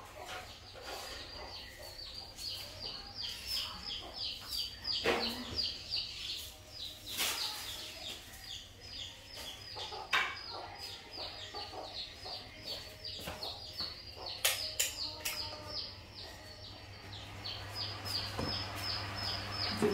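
Birds chirping in a quick, steady run of short, high, falling notes, with a few sharp knocks in between.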